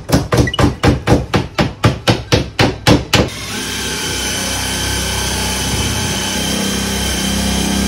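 A hammer striking a wooden lattice frame about four times a second for some three seconds, then a power tool starts and runs steadily.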